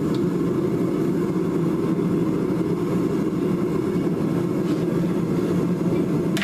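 Gas torch flame burning steadily, a continuous low rushing noise, as it heats a steel pipe clamped in a vise up to forging heat.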